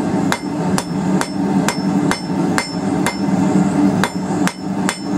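Ball-peen hammer striking a hot quarter-inch round steel bar on an anvil, with steady blows about twice a second, drawing out a taper. A steady low hum runs underneath.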